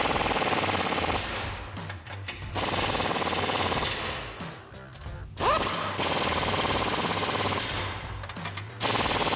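Pneumatic impact wrench with a 21 mm socket hammering bumper mounting nuts tight, in repeated bursts of rapid rattling. The first two bursts are short; before the longest one, about three seconds long, there is a quick rising whine as the tool spins up, and another burst starts near the end.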